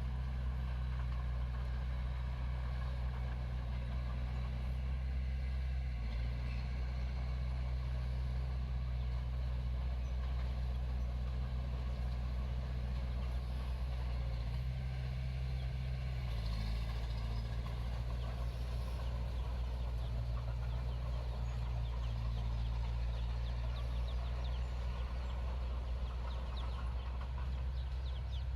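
Diesel engine of a Komatsu D21 bulldozer running steadily under work, its note shifting as the load changes about six seconds in and again around the middle.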